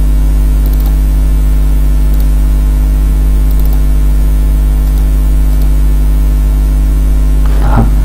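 Loud, steady electrical mains hum, a deep buzz with evenly spaced overtones that never changes.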